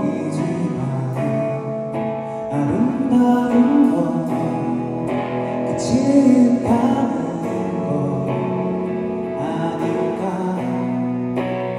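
Live rock band playing a soft passage: a male voice singing over electric guitar, bass and keyboard, with the drums kept in the background.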